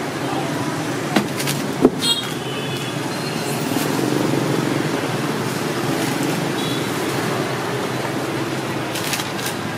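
Steady street traffic noise, with a few sharp clicks and clatters from handling at the food stall, about one and two seconds in and again near the end.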